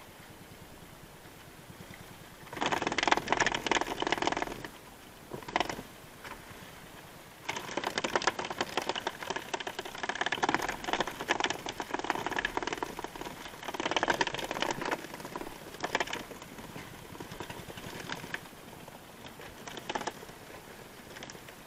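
Irregular bursts of rattling and scraping as a skipjack tuna is hauled aboard by handline and handled in a small boat, with the longest stretch of rattling in the middle.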